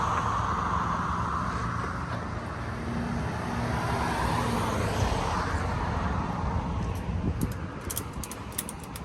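Car driving on a road: steady engine and tyre noise, swelling twice as if vehicles pass, then a run of sharp clicks near the end.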